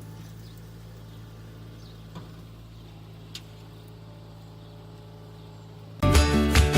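Skid steer engine running steadily at a distance, a low even hum, with a faint click about three seconds in. Music starts near the end.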